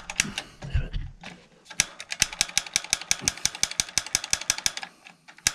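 A gas water heater's push-button pilot igniter clicking rapidly, about six sharp clicks a second, while it is pressed over and over to relight the pilot flame.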